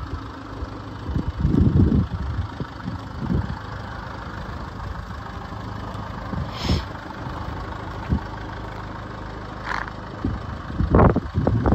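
2015 Land Rover Discovery Sport's 2.2 litre four-cylinder diesel engine idling steadily, with a few brief louder noises about a second and a half in and near the end.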